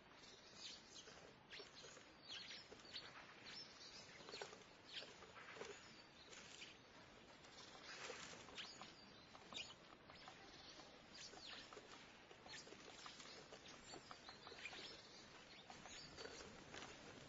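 Small birds chirping and calling at a feeder: many short, high chirps in quick irregular succession over faint steady town background noise.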